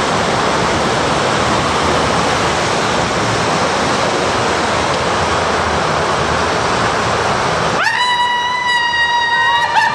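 Water rushing and spraying through an enclosed water slide tube, a steady loud hiss of water around the rider. Near the end the rushing cuts off abruptly and a high-pitched held cry starts, steady for about two seconds before it wavers and breaks up.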